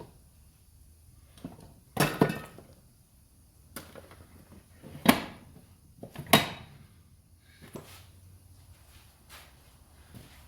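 Metal parts being handled on a shop bench: a few sharp clanks, the loudest about two, five and six seconds in, some ringing briefly, with lighter taps between.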